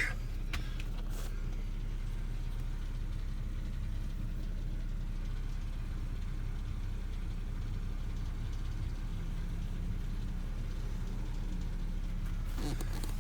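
BMW 525xi (E60) straight-six engine idling steadily, a low even hum.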